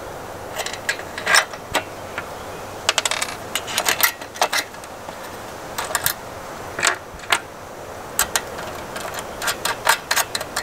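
Small metal hardware clinking and clicking against a solar panel's aluminium frame as a bolt and an aluminium adjustable mounting bracket are worked into the frame's edge, in irregular clusters of sharp clicks.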